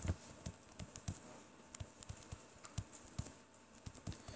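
Stylus tip tapping and clicking on a tablet screen while handwriting, with irregular light taps a few times a second.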